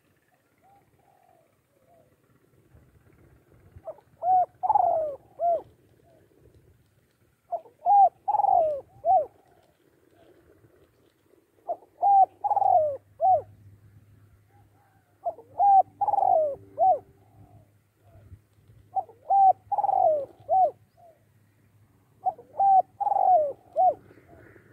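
Spotted dove cooing: six phrases a few seconds apart, each a run of three or four short coos.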